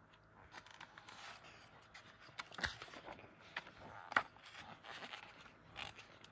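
Faint paper rustling and soft handling taps and scrapes as the pages of a picture book are turned, with a few small sharper ticks scattered through.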